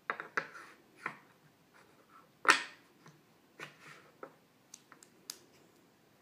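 Wooden puzzle pieces clacking and tapping against a wooden inset puzzle board in a string of separate knocks, the loudest about two and a half seconds in. A few quick, sharp claps follow near the end.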